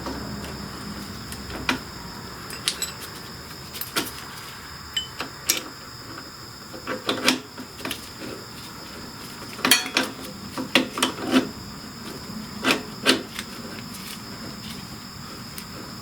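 Irregular light clicks and knocks of hand work on a motorcycle's shifter parts, bunched most densely about two-thirds of the way through.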